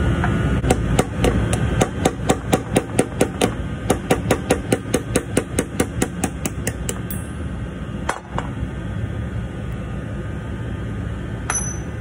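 Hammer tapping a pin punch to drive the pull pin out of a snow plow control valve's cable clevis: a quick, even run of metal-on-metal strikes, about five a second, that stops about seven seconds in, followed by two single knocks.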